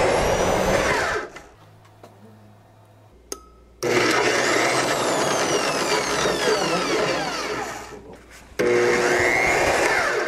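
Merax FE-50 magnetic-base drill's motor running under load as it drives an M16 tap into a metal plate, cutting a thread on its automatic tapping function. The running sound drops away twice, from about one and a half seconds to four seconds in and again briefly near eight seconds, then comes back abruptly.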